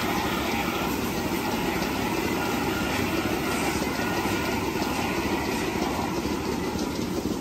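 Steady running noise of milking-parlour machinery, with water spraying from a hose spray gun as the cows' legs and udders are washed.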